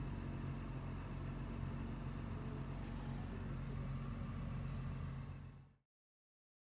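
An engine idling steadily, a low even hum, which cuts off suddenly near the end.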